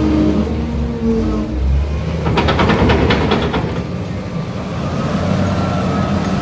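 Doosan DL300 wheel loader's diesel engine running steadily, with a steady whine in the first second or so. About two and a half seconds in, a load of mud is tipped from the raised bucket into a dump truck's bed: a dense clatter lasting about a second.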